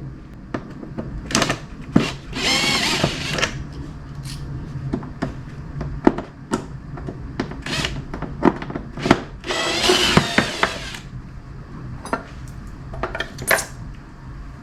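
Cordless power drill/driver running in two bursts, about two seconds in and again about nine seconds in, backing out the trunk lid's bolts. Between the bursts come short clicks and knocks of metal and plastic parts being handled.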